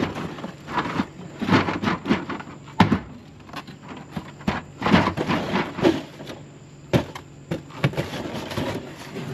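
Cardboard boxes being hooked, dragged and tipped over with a long-handled grabber pole inside a metal dumpster: irregular knocks and thuds with cardboard scraping and rustling, the sharpest knocks about three and seven seconds in.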